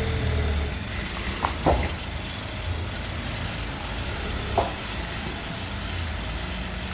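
Steady mechanical running noise with a low hum that eases about a second in, and a few short knocks, two close together about one and a half seconds in and one more about four and a half seconds in.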